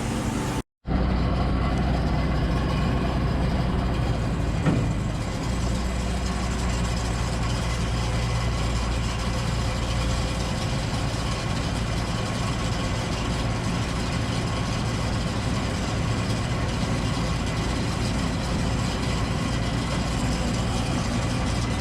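John Deere 955 combine harvester's diesel engine running steadily with its drives engaged, a single short knock about five seconds in.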